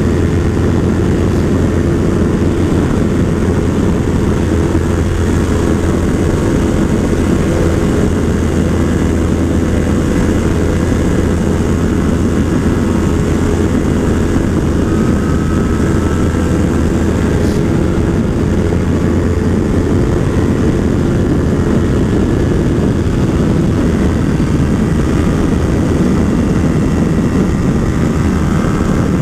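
Yamaha R3's 321 cc parallel-twin engine running steadily at high revs at highway speed, with wind rushing over the onboard microphone.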